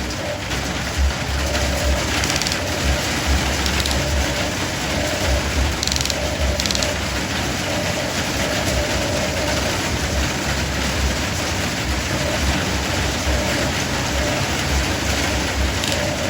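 Radio-controlled excavator at work: its small motor whines in short on-off spurts while sand and grit crunch and scrape, over an irregular low rumble.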